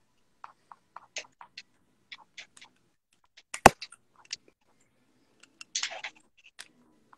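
Scattered light clicks and taps, with one sharp, much louder click about halfway through and a short rustling scrape near the end.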